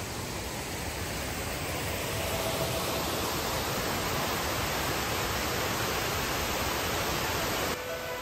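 A steady rushing noise that swells slightly about two seconds in and cuts off suddenly near the end.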